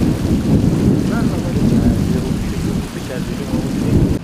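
Wind buffeting the microphone: a loud, uneven low rumble, with men's voices faint underneath. It drops away abruptly near the end.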